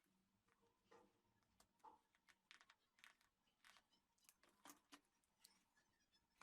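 Near silence: quiet room tone with a dozen or so faint, scattered clicks and rustles.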